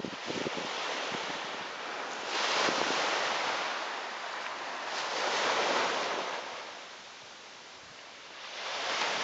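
Ocean surf on a beach: waves break and wash in, in swells that rise about two seconds in, again around five to six seconds, and once more near the end, with a lull in between.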